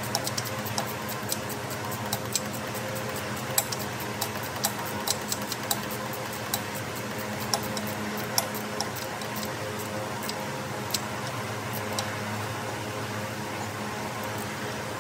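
Hand tools clicking and tapping irregularly on metal during an engine starter change, over a steady hum. The clicks come thickest in the middle stretch.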